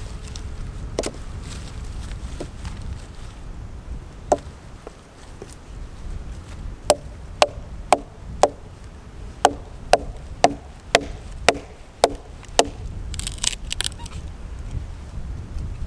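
Hatchet chopping and splitting a short length of green wood against a fallen log: one sharp knock about four seconds in, then a run of about a dozen knocks, about two a second, each with a short woody ring. A brief crackle near the end as the wood splits apart, over a steady low wind rumble.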